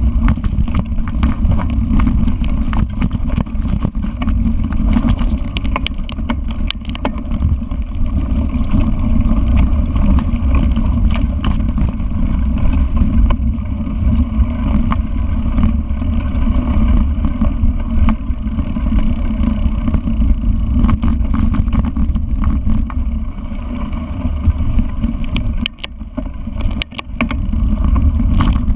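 Wind buffeting the microphone of a riding mountain biker, a loud steady rumble, with the bike's tyres and frame clicking and rattling over the bumpy dirt trail. It eases briefly near the end.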